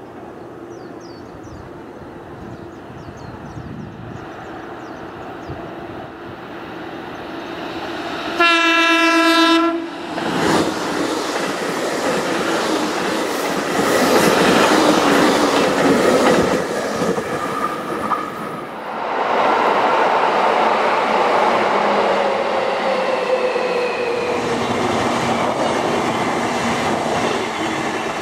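Electric commuter train approaching and passing close by, with one horn blast lasting about a second and a half about eight seconds in, then the noise of wheels on rail and the running cars going by.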